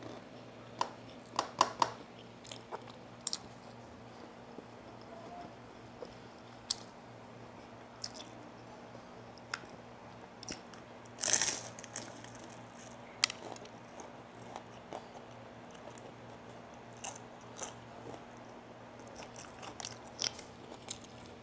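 Close-up biting and chewing of a fried vegetable spring roll (lumpiang gulay): scattered short crunches and mouth clicks, the loudest crunch about eleven seconds in. A faint steady hum lies beneath.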